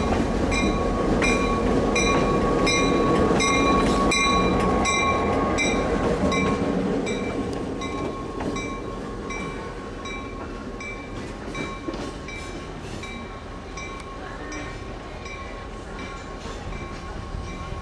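Passing DM&IR diesel locomotive: its engine rumbles loudly, then fades over the first several seconds as it moves away. Its bell rings in steady strokes, a little under two a second, growing fainter.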